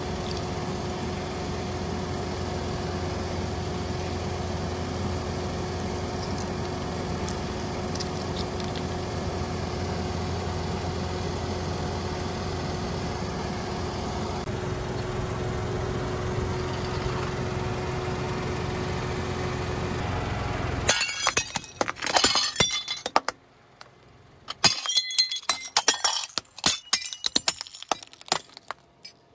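A car engine idling with a steady hum. About two-thirds of the way in it gives way to sharp cracking and shattering as a car tyre rolls over and crushes brittle plastic pieces, in two spells with a short quiet gap between.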